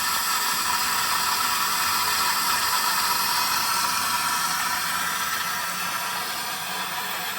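Steady hiss that eases slightly after about four seconds.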